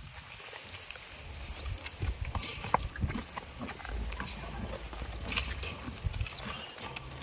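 Goats moving and feeding close by: scattered knocks, clicks and rustling over a low rumble, with no clear bleat.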